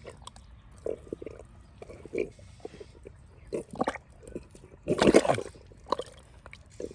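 Wet mud and water being worked by hand: irregular squelches and splashes, loudest about five seconds in.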